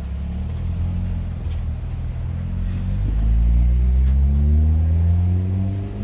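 Hyundai Tucson 2.0 engine heard through an exhaust with the rear (final) muffler removed. The note holds fairly steady, then climbs steadily from about halfway as the car accelerates, growing louder.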